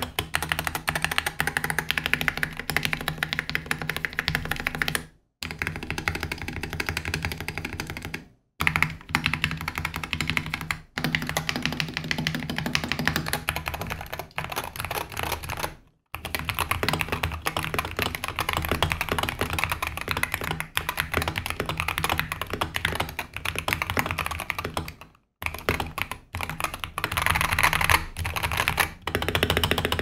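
Typing sound test on a stock Wooting 60HE keyboard with its linear Hall-effect (Lekker) switches: rapid runs of plastic key clacks and spacebar presses in several stretches broken by short gaps. Smooth and factory-lubed, with no rattle.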